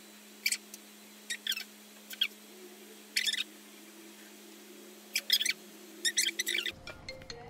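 A small bird chirping in short, quick bursts, some falling in pitch, about seven times, over a faint steady hum.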